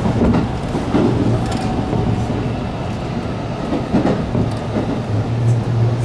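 Passenger train running at speed, heard from inside the carriage: a steady rumble with a low hum that grows stronger in the second half, and a few sharper clacks from the wheels.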